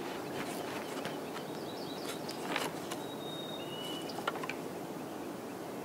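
Two young bull elk sparring, their antlers knocking and clacking together several times, one knock louder about two and a half seconds in, over a steady outdoor background.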